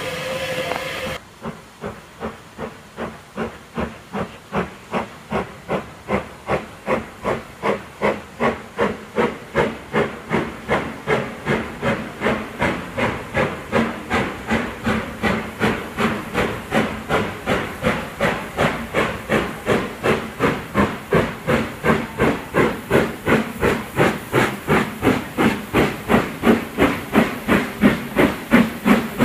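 Steam locomotive No. 13065, an LMS 'Crab' 2-6-0, working a train with a steady chuffing exhaust of about two to three beats a second, each beat with a hiss of steam. The beats grow louder as it approaches. The first second is a steady steam hiss before the beats start.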